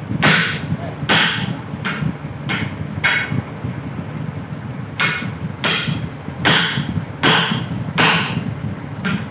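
A hand tool worked against a pay loader tyre during a vulcanizing repair: a string of short, sharp strokes, roughly one a second, with a pause of about two seconds in the middle. A steady low hum runs underneath.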